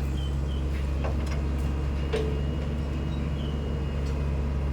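SANY SY75C Pro excavator's diesel engine running at a steady low drone, smooth and healthy-sounding, with a few faint clicks and short high chirps on top.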